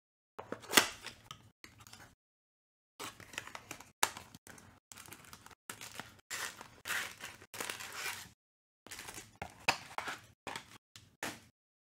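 Cardboard blaster box being opened and foil trading-card packs torn open, with repeated tearing and crinkling of the wrappers in short bursts. A sharp crack about a second in is the loudest sound.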